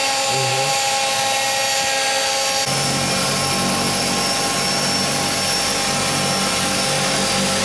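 Small passenger aircraft's engine running, heard from inside the cabin, with a steady high whine. About three seconds in, a deeper low hum suddenly joins it.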